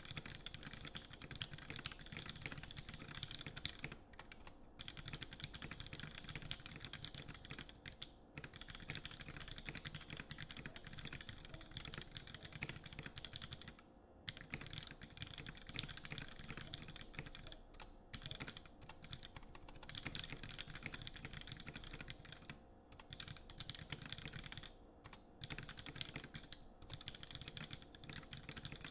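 Fast, continuous typing on a custom 65% mechanical keyboard with a cast clear-resin case, carbon fiber plate and unlubed Punchy black linear switches (Gateron all-milky housings), with brief pauses every few seconds. The owner calls the unlubed milky housings tinny and says the stabilizers rattle somewhat.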